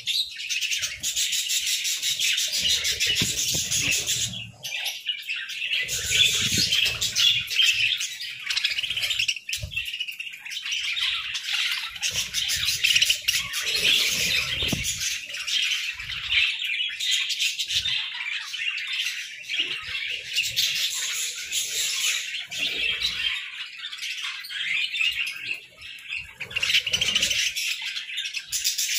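A large flock of budgerigars chattering and chirping continuously in a dense, overlapping warble, with an occasional low flutter of wings.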